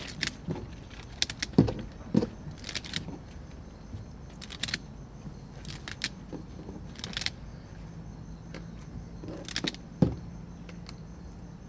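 Rubber bands being stretched and snapped one after another onto a watermelon's rind, which already carries about 200 bands: irregular sharp snaps, some with a dull thud, about one a second.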